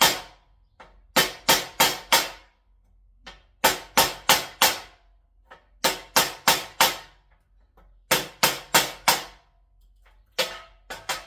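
1095 steel knife blade chopped hard into a wooden axe handle: sharp knocks in quick bursts of about four, five bursts with short pauses between, as the edge is abused in an edge retention test.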